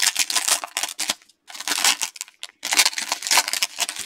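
Foil trading-card pack wrapper crinkling and tearing as it is ripped open by hand, in three bursts of rustling.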